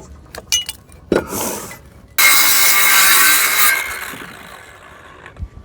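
A power saw cutting across a wooden flooring board for about a second and a half, then its sound dying away, after a few light knocks of handling.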